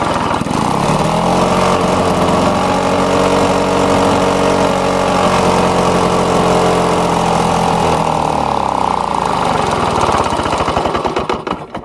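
Lawn-Boy two-stroke mower engine running: it speeds up about a second in as the throttle goes to high speed, holds a steady pitch, then slows and dies away near the end. On high speed it still runs slower than wanted, a sign that the air vane governor spring needs more tension.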